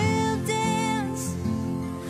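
Background music: a song with a sung melody over guitar accompaniment.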